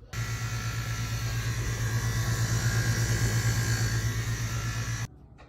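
Maytag dishwasher's pump and chopper wheel running with a loud, steady buzzing grinding noise, a low hum under a harsh rasp, which starts abruptly and cuts off about five seconds in. The noise comes from a failing chopper wheel in the pump assembly.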